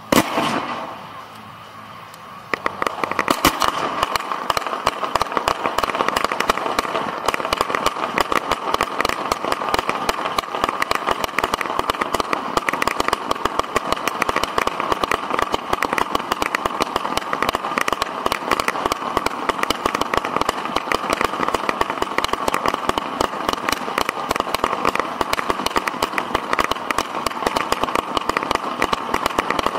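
Fireworks fired at close range from the launch site: a loud bang at the start, then from about two and a half seconds in a dense, continuous barrage of rapid launch pops and crackles that keeps going at a steady level.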